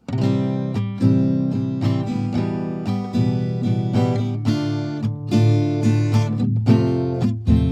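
Background music led by a strummed guitar, starting abruptly from silence.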